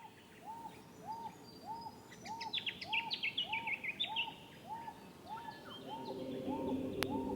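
Birds calling: one bird repeats a short, arched note about twice a second, while another gives a quick run of falling chirps in the middle. A low steady drone comes in near the end.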